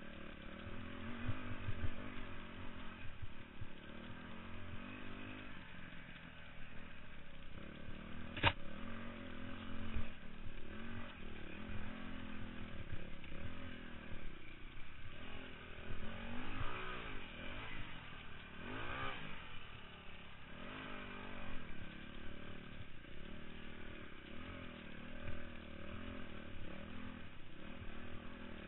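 Dirt bike engine revving up and down continually as the rider works the throttle over rough trail, with a sharp knock about eight seconds in.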